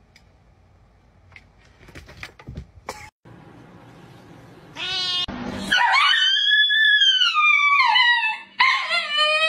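A cat yowls: one long, loud, drawn-out meow that falls in pitch, and a second one starting near the end. A few faint clicks come before it.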